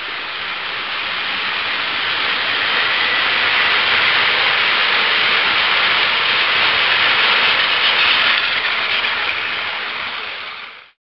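Battery-powered Plarail toy Shinkansen train running on plastic track: a steady motor-and-gear buzz that grows louder as the train comes close, then fades and cuts off abruptly near the end.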